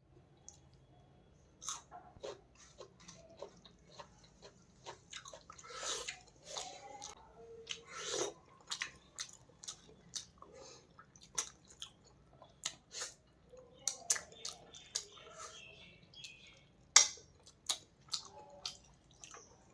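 Close-miked eating: chewing fish and rice with irregular wet mouth clicks and smacks, starting about two seconds in, with one sharp click near the end the loudest.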